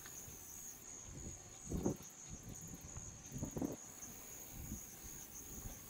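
Steady high-pitched chirring of night insects, with a couple of low muffled thumps about two and three and a half seconds in.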